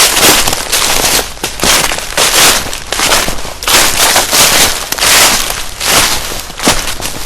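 Footsteps crunching through dry fallen leaves and twigs on a forest floor, one step about every second at a steady walking pace, each a crisp crackling crunch.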